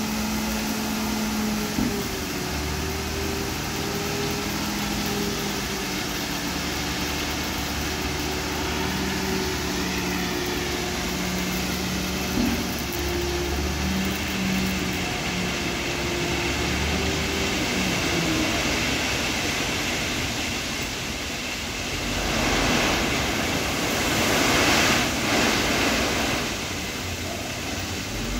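Tata tipper truck's diesel engine running steadily at raised speed to drive the hydraulic hoist as the dump body tips, its pitch shifting up and down a little. About three quarters of the way through, a louder rushing noise comes in for a few seconds as the stone load slides out of the body.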